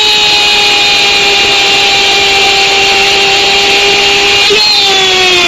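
Spanish-language radio football commentator's drawn-out goal cry, one long high held note that signals a goal, with a brief break about four and a half seconds in and a slight fall in pitch near the end.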